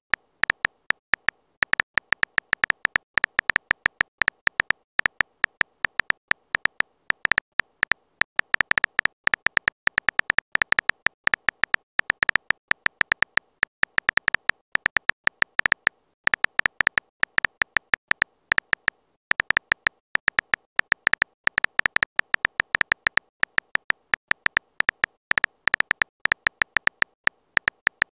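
Rapid key-tap clicks from a phone's on-screen keyboard, a short bright tick for each character typed, coming in quick bursts with brief pauses between words and phrases.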